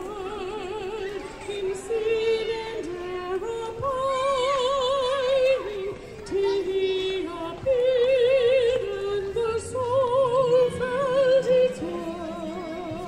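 A woman singing long held notes with wide vibrato, moving between several sustained pitches.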